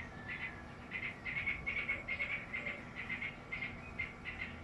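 Small birds chirping: a rapid, continuing series of short high chirps, several a second, coming in clusters.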